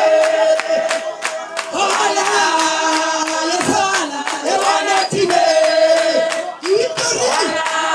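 A group of people singing together in long held notes that move from pitch to pitch, with steady rhythmic hand clapping.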